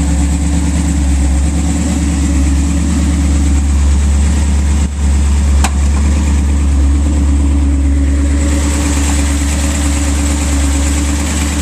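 Big-block V8 with an 8-71 supercharger blower idling steadily. A single sharp click comes about halfway through.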